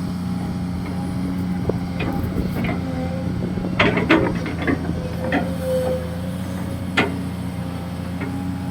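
Kobelco SK200-6 Super hydraulic excavator's diesel engine running steadily while it digs, with a few sharp knocks from the working machine, a cluster about four seconds in and one more about seven seconds in.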